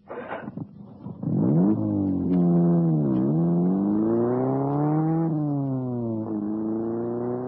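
Car engine sound effect: a short burst at the start, then the engine pulls away about a second in and accelerates. Its pitch climbs, drops back near three seconds in, and drops again twice later on, as it changes gear.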